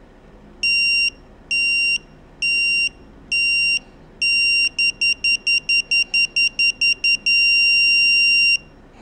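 DEEN digital torque wrench's electronic beeper sounding as torque is applied: four high beeps about a second apart once the reading passes the 25% pre-warning point, quickening to rapid beeps as it nears the target, then a steady tone held for over a second when the preset 30 N·m is reached.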